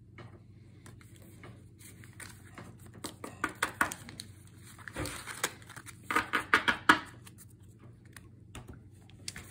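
A stack of Pokémon trading cards being handled and slid against each other in the hands: soft rustling and light clicking that comes in two denser bursts, one a little before halfway and one a little past it.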